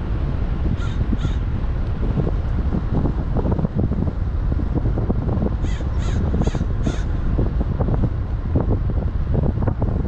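Steady low rumble of a car driving along a street, with short bird calls over it: two close together about a second in, and a run of four about six to seven seconds in.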